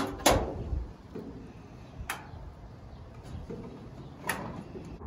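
Steel shed parts being handled as bolts are fitted through the gable end and the first roof sheet: sharp knocks and clinks, three louder ones about two seconds apart, the first the loudest.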